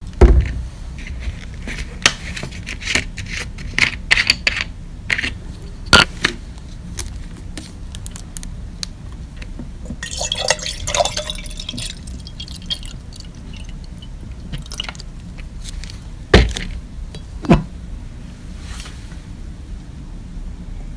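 Water poured into a drinking glass in a short pour about ten seconds in, after a run of sharp clicks and knocks from handling the glass. Two louder knocks follow later, over a steady low hum.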